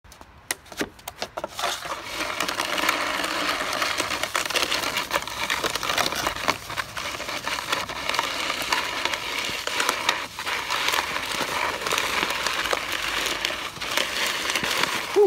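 Wide plastic snow-pusher shovel scraping along a concrete sidewalk as it pushes snow: a steady scraping hiss. It follows a few clicks near the start and breaks off briefly about ten seconds in.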